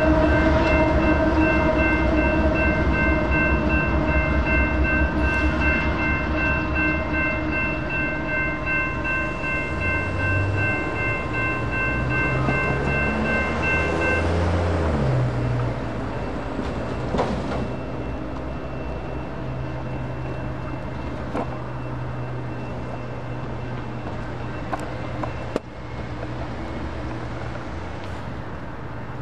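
Freight train rumbling past a grade crossing while the crossing's electronic bells ring. About halfway through, the bells cut off as the train clears, leaving a quieter steady hum with a few clicks.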